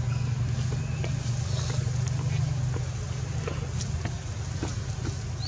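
A steady low engine drone, like a vehicle running in the background, easing off slightly near the end, with faint scattered clicks over it.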